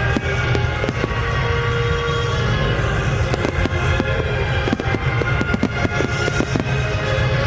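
Fireworks going off in many sharp pops and crackles in quick succession, with a deep rumble of bursts, over music playing through loudspeakers.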